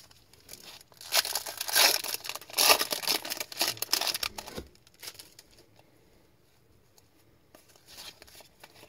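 The foil wrapper of an Upper Deck MVP hockey card pack being torn open and crinkled: a loud, noisy rustle lasting about three seconds, then faint handling of the cards.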